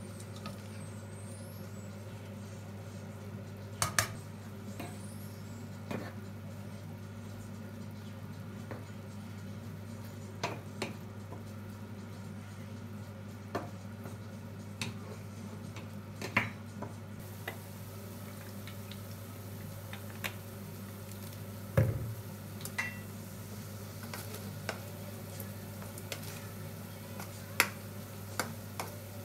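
Cooking utensils clinking and scraping against metal pots and a frying pan as pasta is tossed and pork is stirred, with scattered sharp knocks, the loudest about two-thirds of the way through. A faint sizzle of pork frying in the pan and a steady low hum run underneath.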